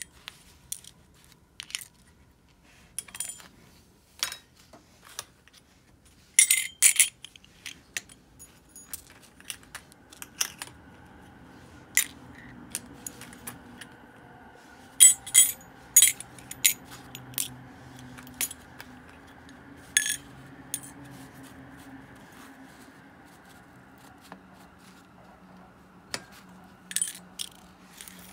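Small metal parts of an Abu Garcia Ambassadeur 5500 DA baitcasting reel clinking and clicking as they are handled and set down during cleaning, many short sharp strikes at irregular intervals. A faint steady hum comes in underneath about a third of the way through.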